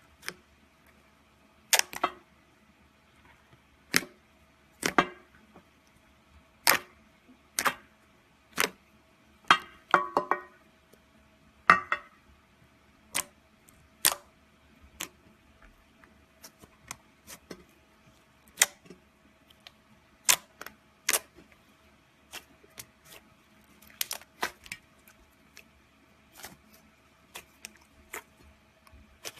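Slime being pressed and poked by hand, giving sharp pops and crackles at irregular intervals, roughly one a second.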